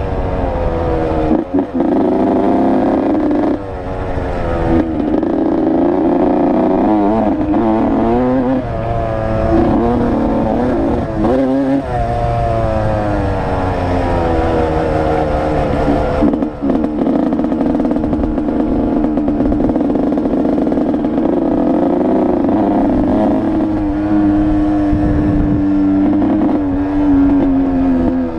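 Dirt bike engine being ridden along a dirt trail, its pitch rising and falling as the throttle opens and closes, with brief drop-offs a few times. It runs steadier in the second half, sliding lower near the end.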